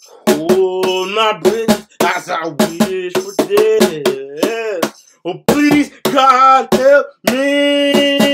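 A man singing in a rock cover over hand-slapped hits on a Meinl cajon, sharp drum strokes falling between and under the sung notes. Near the end he holds one long note while the hits go on.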